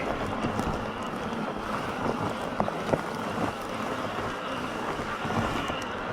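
Bafang M620 Ultra mid-drive e-bike motor running under throttle at low speed up a hill, a steady whine over wind on the microphone. The owner calls the motor unacceptably loud even though it is heavily greased.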